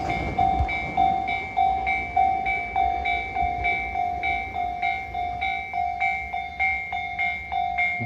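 Japanese railway level-crossing alarm ringing, an even, repeated kan-kan of bright, decaying strokes, a bit over two a second: the sign that the crossing is closed for an approaching or passing train.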